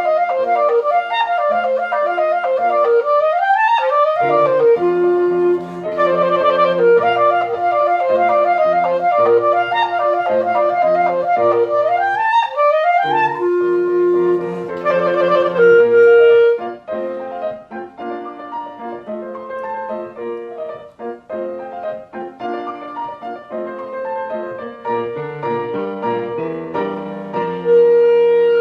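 Clarinet playing a fast, busy passage over piano accompaniment, with two quick upward runs that sweep high. About halfway through the music turns softer, and a long held note begins near the end.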